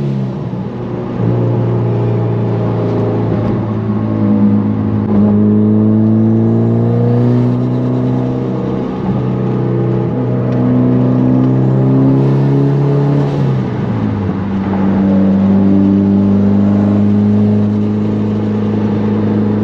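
A 2015 Mitsubishi Lancer Evolution X Final Edition's turbocharged four-cylinder with an open dump and full titanium exhaust, heard loud from inside the cabin, droning at a steady cruising note. About fourteen seconds in the note drops to a lower steady pitch.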